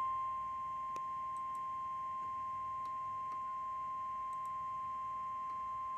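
NOAA Weather Radio warning alarm tone: a single steady high tone of about 1050 Hz, held unbroken. It is the alert signal that comes right before a warning message is read.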